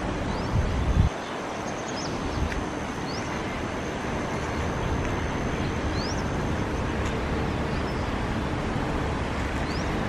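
Steady outdoor background rush, like wind and distant traffic, with low rumbling bumps on the microphone in the first second. A few faint, short, high rising chirps from small birds come through now and then.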